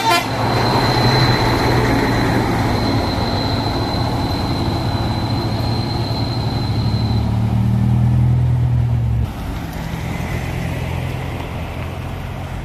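Mitsubishi Fuso flatbed truck's diesel engine running as the truck drives slowly past, a steady low engine note. About nine seconds in the sound drops suddenly to a quieter engine note.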